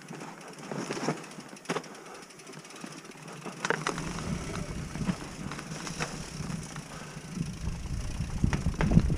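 Mountain bike riding downhill on a leaf-covered forest trail: tyres rolling and rustling over dry leaves and dirt, with repeated clicks and knocks from the bike over bumps and roots. A low rumble joins about four seconds in, and the sound grows louder toward the end.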